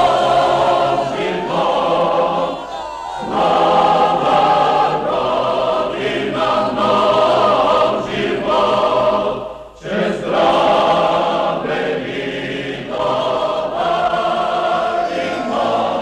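A choir singing in long, held phrases, with brief breaks about three and ten seconds in.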